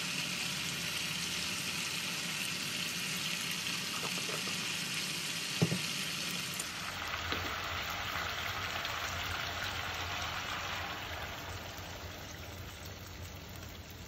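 Hilsa fish steaks frying in oil in a pan, a steady sizzling hiss, with one sharp tap about halfway through.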